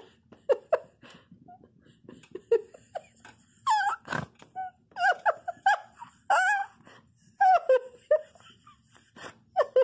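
Kitten mewing in a dozen or so short, high calls that bend up and down in pitch, coming thick and fast in the second half, with a single thump about four seconds in.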